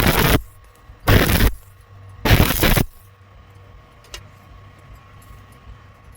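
Stick-welding arc crackling in three short bursts of about half a second, roughly a second apart, then stopping; a single click follows.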